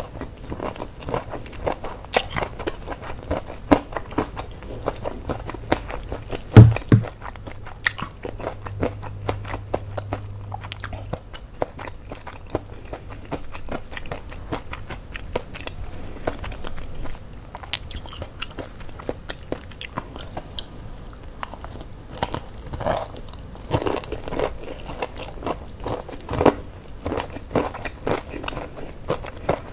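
Chewing and crunching of crispy battered fried chicken eaten by hand, with frequent small crackles. A single loud low thump comes about six and a half seconds in.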